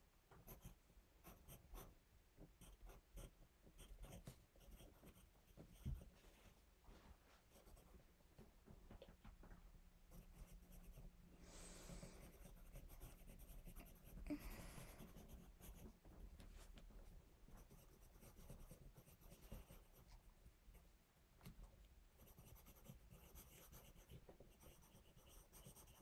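Faint pencil scratching on notebook paper as a child writes: many quick, irregular strokes, with a couple of brief soft rustles near the middle.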